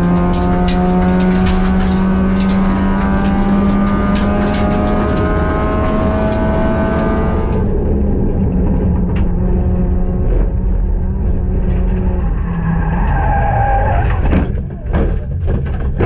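Honda Brio race car's four-cylinder engine heard from inside its stripped cabin, pulling hard with its pitch rising steadily. About halfway through the sound turns suddenly duller and the engine note eases, and a few sharp knocks come near the end.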